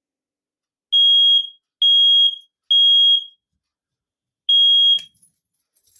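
Kidde i9040 smoke alarm sounding under its test button: three loud, high-pitched beeps about a second apart, the three-beep evacuation pattern. After a pause a fourth beep starts the next round and is cut off with a click near the end.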